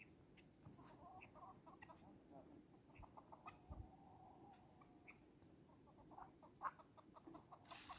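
Faint clucking of chickens: scattered short notes over near silence.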